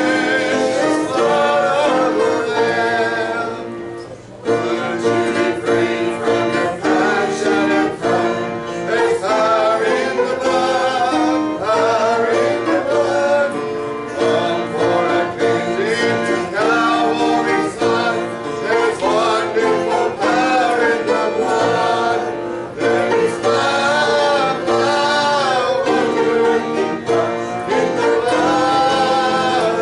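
A song sung with plucked-string accompaniment in a country or bluegrass style, with guitar and banjo. The music drops off briefly about four seconds in, then carries on.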